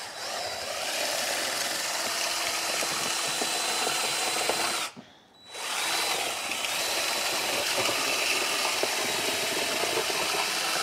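Handheld drill spinning a paint-mixing paddle through a tub of soaked grain feed and water, the motor whining steadily over the churning of the wet mash. It stops for about half a second midway, then starts again.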